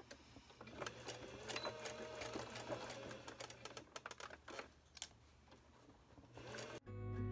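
Sewing machine running as it top-stitches around a fabric edge, a steady motor hum with the rapid clatter of the needle. It stops about five seconds in.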